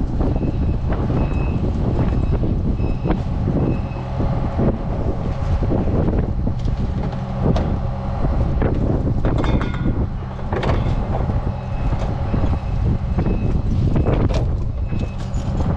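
Wind buffeting the microphone, with repeated knocks and scrapes as plastic gas cans are lifted out of a pickup truck bed.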